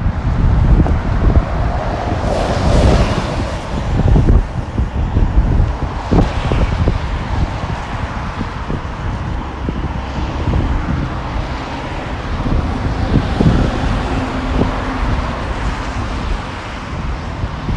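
Wind buffeting the microphone in heavy gusts, over road traffic, with a car hissing past on the wet road a few seconds in.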